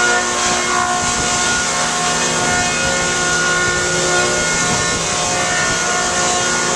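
Electric 1976 Newman M68 planer running steadily: a loud, continuous hum with several steady tones over a hiss, some tones fading in and out.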